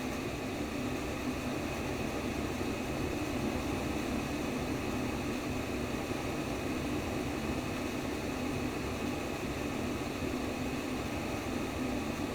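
Steady whooshing white noise, a synthetic womb-sound track that imitates the sound inside the womb, running evenly without change.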